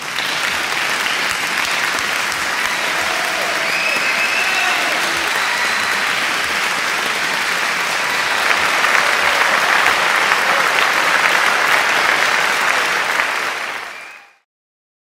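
Crowd applause, steady and loud, fading out and stopping shortly before the end.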